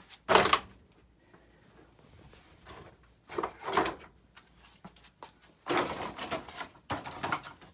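Handling noises while a tissue is fetched: three clusters of short rustles and knocks, with quiet stretches between.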